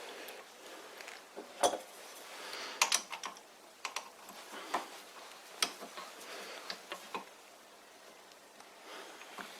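Scattered clicks and metallic clinks of lathe headstock parts being handled during disassembly, with the loudest knock about one and a half seconds in and a quick run of clicks around three seconds.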